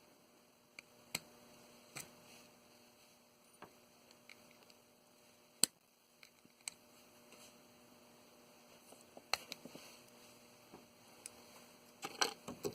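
Scattered faint clicks and snaps, about ten, from small bolt cutters working on a VGA connector to pull its pins out. The sharpest snap comes about halfway through, with a faint steady hum underneath.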